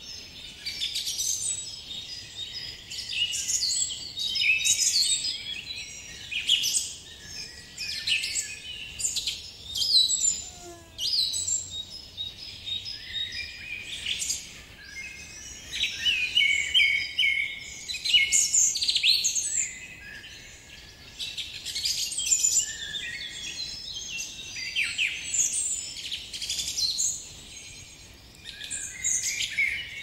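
Several songbirds singing at once: overlapping high-pitched songs and chirps that come in bouts of a second or two.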